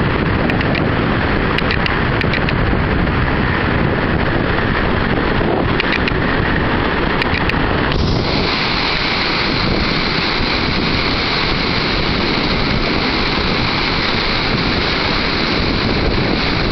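Strong wind buffeting the microphone over the steady rush of waves breaking on a lake shore, with a few faint ticks in the first seven seconds.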